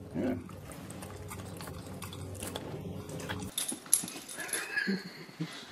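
A pug smacking its lips and snuffling as it takes a treat from a hand. About three and a half seconds in, the sound cuts to quieter pug snuffles and small clicks.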